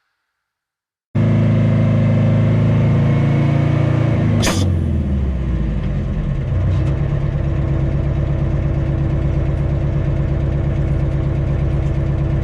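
After about a second of silence, a dump truck's diesel engine running steadily, with a short sharp burst of noise about four and a half seconds in.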